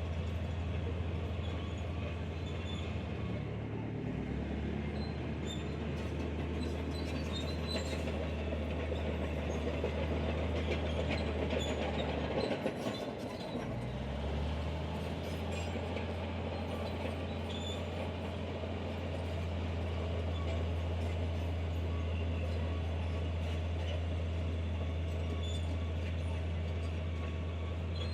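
Diesel engine of heavy earthmoving machinery running steadily, with scattered light metallic clanks. The engine note drops about four seconds in, falls away briefly about halfway through, then comes back at a higher pitch.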